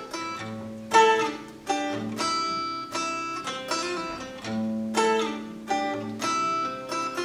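Acoustic guitar playing an instrumental passage: single picked notes and chords ringing out one after another in a repeating pattern.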